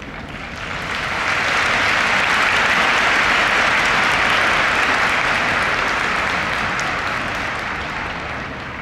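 Stadium crowd applauding, swelling about a second in, holding, then slowly dying away near the end.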